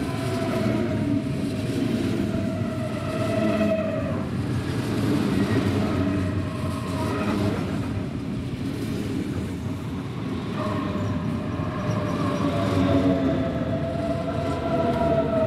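DB class 423 S-Bahn electric multiple unit slowing as it rolls past into the station, with a steady wheel and body rumble. Over it, the traction motors whine with a falling pitch, once near the start and again from about ten seconds in as the next cars pass.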